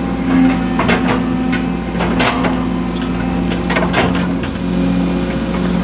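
Excavator's diesel engine running steadily, with a few sharp knocks of metal or concrete.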